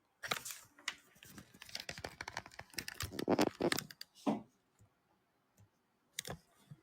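Typing and clicking on a computer keyboard: a quick run of clicks and rattles lasting about four seconds, then a couple of single clicks near the end.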